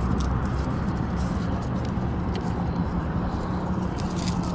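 A steady low engine drone runs under light scrapes and clicks as a wet rope is hauled over a rough concrete edge.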